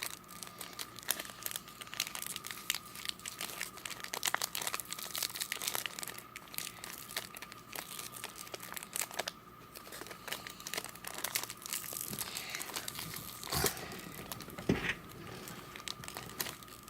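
Football card pack wrapper crinkling and tearing as it is worked open by hand: a dense run of irregular crackles, with two louder clicks about a second apart near the end.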